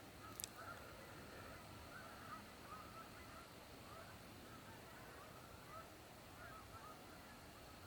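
Faint honking of a flock of migratory geese: many short calls overlapping one another without a break. A single sharp click sounds about half a second in.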